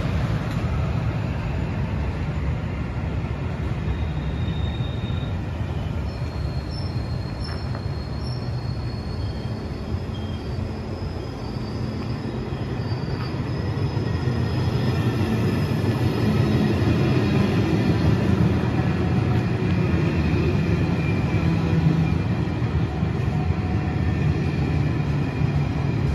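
SJ X2000 high-speed electric train running past along the platform: a steady rumble of wheels on rail that grows a little louder in the second half. Faint high wheel squeals come and go in the first half.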